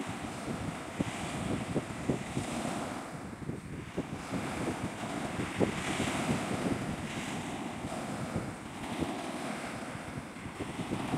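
Wind buffeting the microphone with a rough low rumble, over sea waves washing that rise and fall every second or two.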